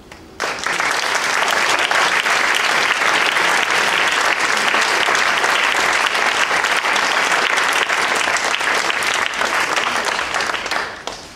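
Audience applause: many people clapping, starting sharply about half a second in, holding steady, then dying away near the end.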